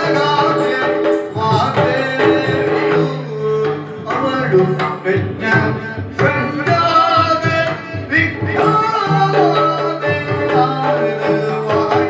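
Yakshagana music: a singer's voice with drum accompaniment over a held drone.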